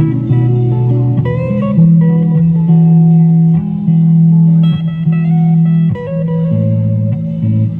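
Solo archtop guitar played by hand, sustained low bass notes shifting every second or two beneath higher plucked melody notes.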